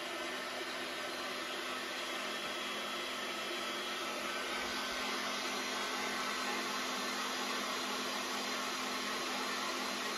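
Line boring machine's electric drive running steadily, turning the boring bar, a continuous even whirr with a low steady hum.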